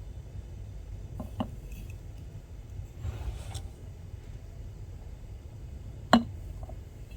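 A few light clinks and knocks of hard objects being handled, the sharpest one about six seconds in, over a low steady rumble.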